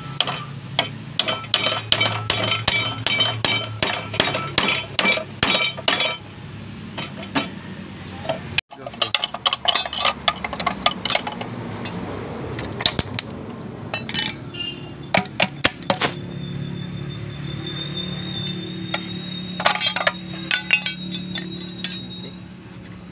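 Hammer blows on the steel shell of a Honda Dream 100 muffler under repair, fast metallic strikes with a ringing tone, about three or four a second for the first six seconds, then scattered strikes after a break.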